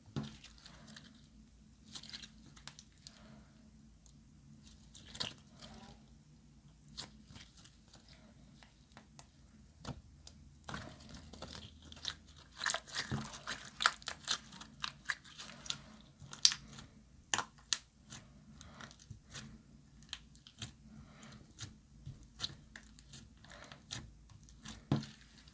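Glossy slime being squished and worked by hand, giving irregular sticky clicks and crackles that come thickest about halfway through.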